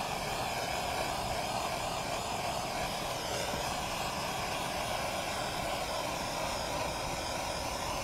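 Handheld gas torch burning with a steady, even hiss while heating heat-shrink tubing on a wire splice.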